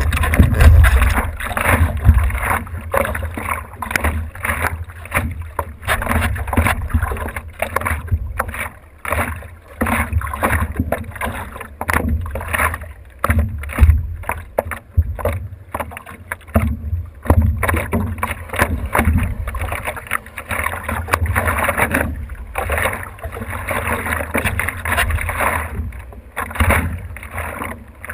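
Water splashing and sloshing against a stand-up paddleboard as it is paddled, coming in uneven surges with a low rumble underneath.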